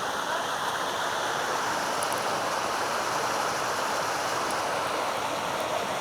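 Steady rushing of a waterfall and its stream, water pouring without a break.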